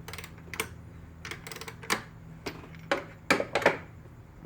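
Ratchet with an extension and E10 socket backing out a freshly loosened screw: irregular clicks and metal taps, a quick run of clicks about a second and a half in, and the loudest ones near the end.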